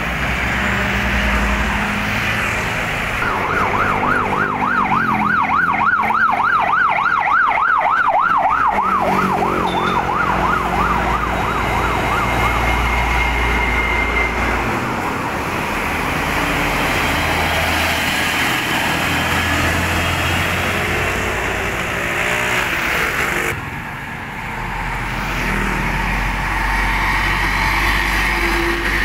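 Heavy trucks and traffic passing close by, engines running and tyres on the road. From about three seconds in, a siren warbles rapidly for about seven seconds, its pitch swinging up and down several times a second.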